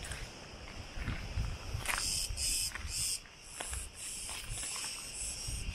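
Insects shrilling in a steady high-pitched drone that swells and cuts off in blocks, typical of summer cicadas in the trees, over a low rumble with a few soft thumps.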